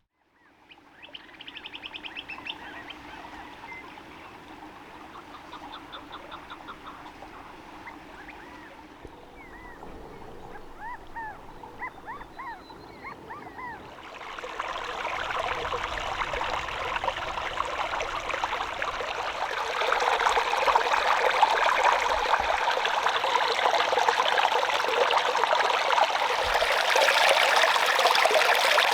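Small birds chirping and trilling, with quick falling notes, over a faint background. About halfway in, a steady rush of running water sets in, and it grows louder again about two-thirds of the way through.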